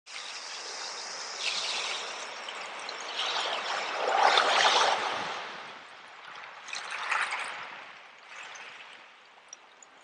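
Small sea waves breaking and washing in over a shore of shells and pebbles, a hissing surge that swells loudest about four to five seconds in, with a smaller wash near seven seconds, then draws back quieter.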